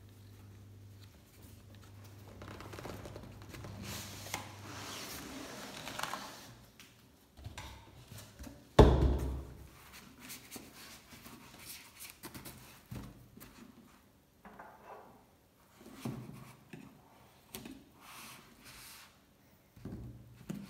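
Cardboard shipping box and foam packing being handled: a few seconds of cardboard scraping and sliding, a single loud thump about nine seconds in, then light rustles and taps as the packaging is handled.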